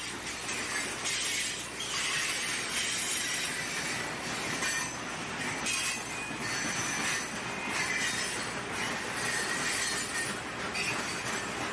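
Freight train of steel coal hopper cars rolling past, wheels running steadily on the rails. A thin, high wheel squeal comes and goes over the rolling noise.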